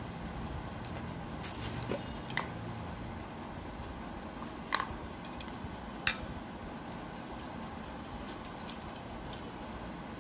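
Steel spoon clinking against a ceramic bowl while stirring spices and sugar into thick yogurt: a handful of separate clinks, the loudest about six seconds in.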